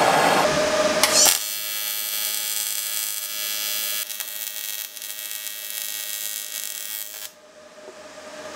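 A small handheld gas torch hisses briefly, then an inverter TIG welder's arc buzzes steadily for about six seconds and cuts off near the end. The welder is run at about 85 amps on a 115-volt supply.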